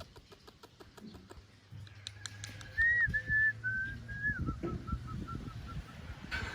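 Six-week-old Labrador puppy whining: a thin, high-pitched whine in a few short drawn-out notes, then a quick run of short whimpers that fade away. Faint clicks come before it.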